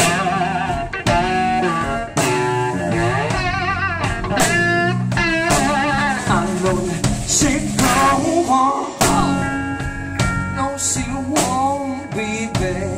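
Live blues-rock band playing: a loud electric guitar lead with bent, wavering notes over drums.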